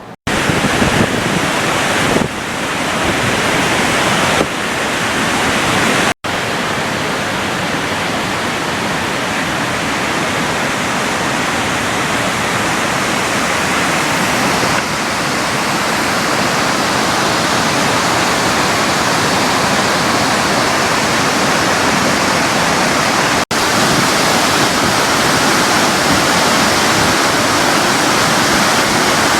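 Steady, loud rush of a large waterfall, Montmorency Falls, with no pitch or rhythm in it. It breaks off abruptly a few times, at about 6 and 23 seconds, and picks up again at a slightly different level.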